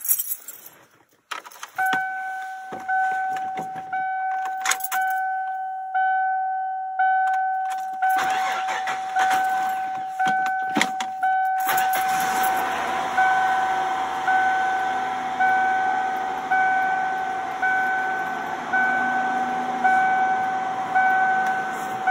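Keys rattle in the ignition of a 1996 Ford F-150, then the truck's warning chime dings steadily about once a second. Midway the starter cranks for a few seconds and the engine catches and settles into a steady idle under the chime: the first start after the engine computer's capacitors were replaced.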